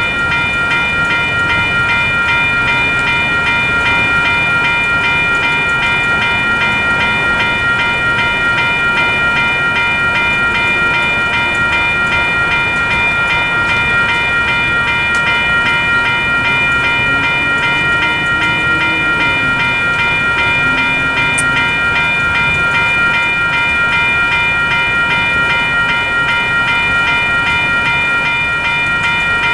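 Western Cullen Hayes Type 3 electronic crossing bell ringing steadily in rapid, evenly repeated dings: the level crossing signals are activated for an approaching train.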